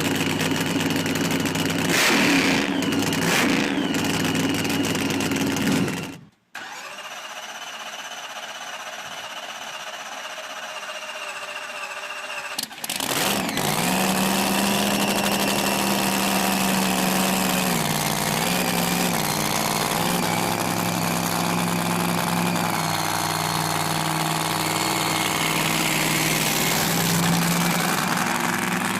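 Muscle car engines running at idle and revving, heard in separate clips joined by abrupt cuts: a brief dropout about six seconds in, a thinner and quieter engine sound after it, then a sudden return to a loud engine whose pitch rises and falls.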